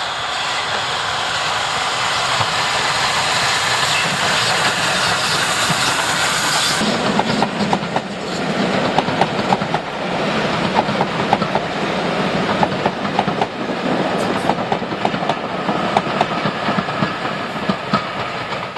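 Flying Scotsman, a three-cylinder LNER A3 Pacific steam locomotive, passing close by with its train. From about seven seconds in, the coaches roll past with a steady clickety-clack of wheels over the rail joints.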